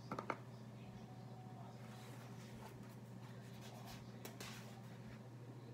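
Quiet room with a steady low hum, and faint paper rustling and soft clicks as a picture book is handled and its pages turned. A couple of small clicks come right at the start.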